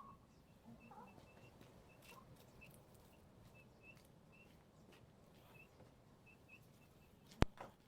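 Faint, irregular high chirps from birds, many short calls scattered throughout, with one sharp click near the end.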